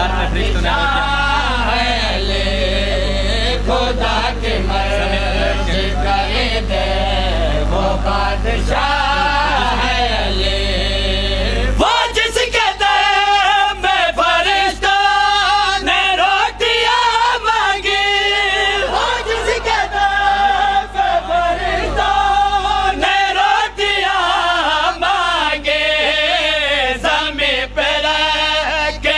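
Men chanting a devotional zikr refrain in chorus, one sustained sung line after another. A steady low hum sits under the voices until about twelve seconds in, then cuts off.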